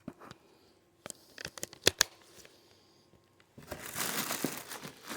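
Product packaging being handled while it is unboxed: a few sharp clicks and taps, then, from about three and a half seconds in, continuous crinkling of the wrapping.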